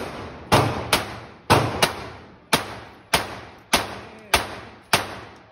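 A .40 S&W semi-automatic pistol fired rapidly in a steady string of about ten shots, roughly one every half second or so, emptying the magazine. Each shot rings on in the echo of the indoor range.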